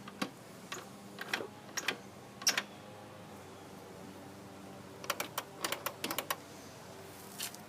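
Scattered light clicks and taps from handling the mower, with a quick run of clicks about five seconds in.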